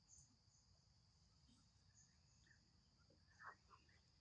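Near silence with a faint, steady high-pitched insect drone and a few short chirps. There is one brief faint sound about three and a half seconds in.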